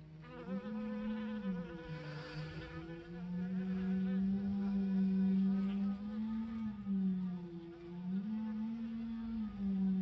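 Honey bees buzzing in flight close to the microphone at the hive entrance: a steady hum whose pitch wavers up and down as bees come and go.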